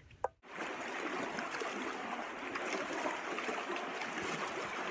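Steady rushing of a shallow river flowing through a slot canyon, starting about half a second in after a brief click.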